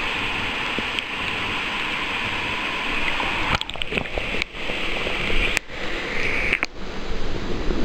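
River water rushing and gurgling, heard through a camera held at and then under the surface. A steady wash of water noise, with brief dropouts and a few sharp knocks from about three and a half seconds in.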